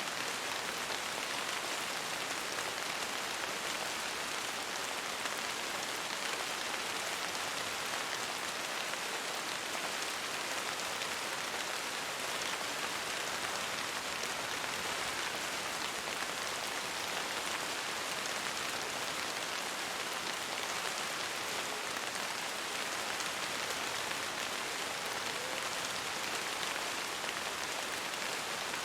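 Steady rain falling, an even, unbroken hiss of many drops with no thunder.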